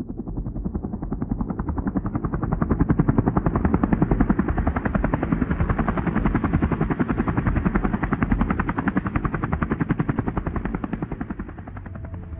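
Fast, even rotor chopping, like a helicopter passing. It swells over the first few seconds and fades near the end.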